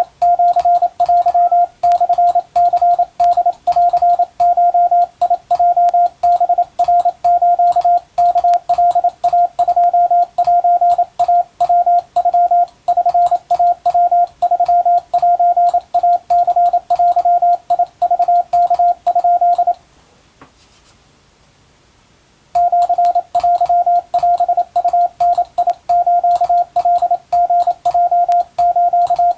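Morse code (CW) in a steady tone of about 700 Hz, keyed on and off in dots and dashes with a faint click at each keying, sending Japanese wabun code. Sending stops for about two seconds roughly two-thirds of the way in, then resumes.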